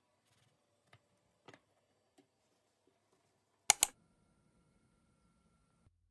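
A few faint knocks, then two sharp clicks in quick succession about three and a half seconds in.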